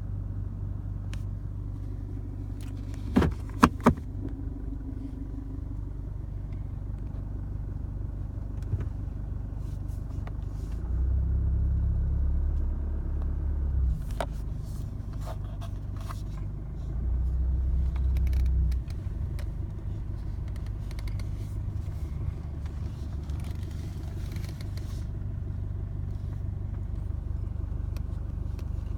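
Chevrolet Colorado 2.8L four-cylinder turbodiesel idling unevenly, swelling louder twice for a few seconds at a time: a rough idle. A few sharp clicks sound about three seconds in.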